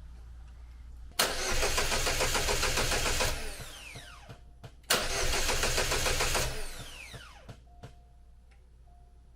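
The supercharged 2.0-litre four-cylinder (LSJ) engine of a Chevrolet Cobalt SS being cranked by the starter twice, about two seconds each, without catching, with the starter whining down after each try. It is a sign of the intermittent no-start, which the owner puts down to weak spark from a battery that sags while cranking.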